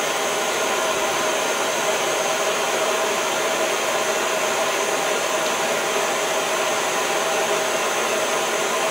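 Hand-held propane torch burning with a steady hiss, heating a thin steel revolver spring so it can be bent to shape.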